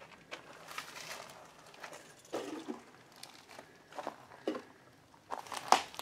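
Footsteps crunching and scuffing over a floor strewn with debris and paper, irregular steps with a sharper knock near the end.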